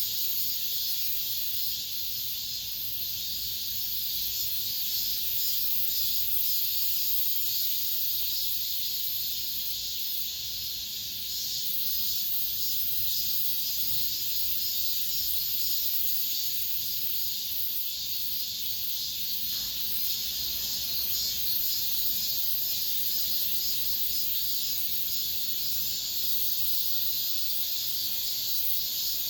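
Cicadas singing together in a steady, unbroken high-pitched buzz.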